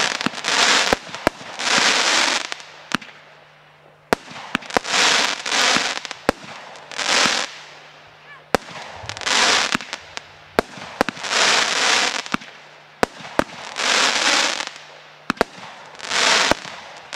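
A Firestorm 19-shot, 30 mm firework barrage cake going off. Each shot gives a sharp bang followed by about a second of crackling, repeating roughly every two seconds, with scattered single pops between the shots.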